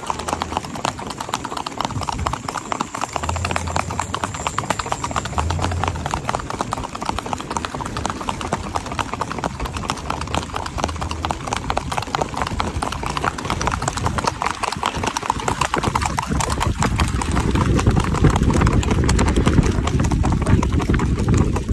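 A ridden horse's hooves clip-clopping rapidly and evenly on an asphalt road. A low rumble grows louder over the last few seconds.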